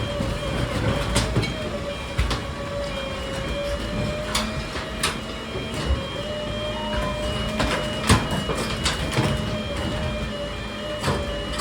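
Garbage truck at work: a steady whine that holds one pitch, with scattered sharp knocks and clatters. A faint beeping repeats in short, evenly spaced dashes.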